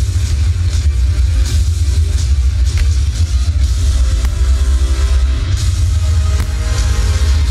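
Fireworks display: a continuous deep rumble of shell bursts with sharp bangs scattered through it, and the show's accompanying music playing underneath.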